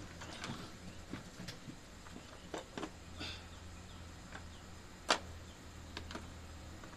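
Scattered light clicks and knocks of hand tools and small carburettor parts being handled, with one sharper knock about five seconds in, over a steady low hum.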